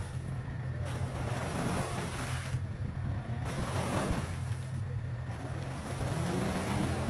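Audi A6 estate's engine running hard as its spinning wheels churn through slushy, icy floodwater, throwing up splashes of mud and water that come in several surges. The engine note rises near the end.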